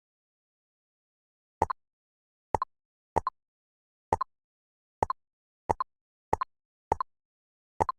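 Jigsaw-puzzle pieces snapping into place, a short double click sound effect, nine times at uneven intervals with dead silence between.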